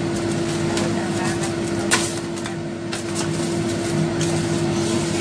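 Aluminium foil crinkling and rustling as it is handled and pressed down over the rim of a bowl, with one sharp crackle about two seconds in, over a steady hum.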